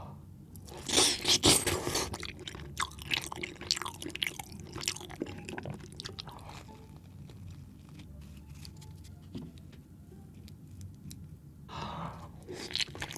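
Close-miked eating of spinach chicken curry: a person biting and chewing, with crisp mouth clicks and smacks. The sound is loudest in the first few seconds, quieter through the middle, and picks up again near the end.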